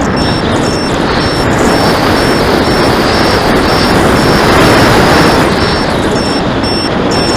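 Heavy wind rush and buffeting on the RC flying wing's onboard camera microphone, with the model's LiPo battery alarm beeping high and fast over it, a few beeps a second throughout. The owner takes the alarm to be faulty, since the battery still had plenty of voltage.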